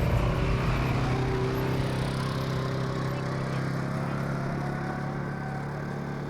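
An engine running at a steady, even pitch, slowly getting quieter.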